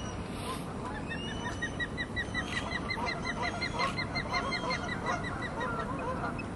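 Birds calling: a fast, regular run of short high chirps, about five a second, with other scattered calls over and after it.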